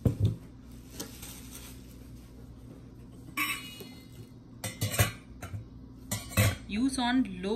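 Belgique stainless steel pots, lids and a steamer insert being handled and set down: a knock at the start, then several separate metal clinks and clanks, one about three and a half seconds in ringing briefly.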